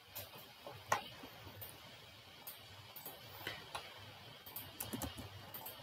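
Faint, scattered clicks of a computer keyboard and mouse, with one sharper click about a second in and a quicker run of clicks near the end.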